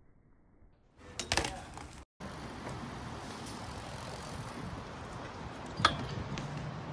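A BMX bike landing hard: a loud clatter about a second in, after near silence. Then steady outdoor background noise, with one sharp clack near the end as a BMX bike hops onto a metal handrail.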